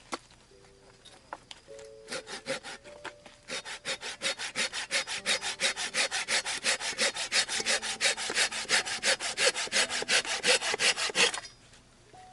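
Hand saw cutting firewood: a few tentative strokes about two seconds in, then quick, even back-and-forth strokes at about five a second that stop abruptly near the end.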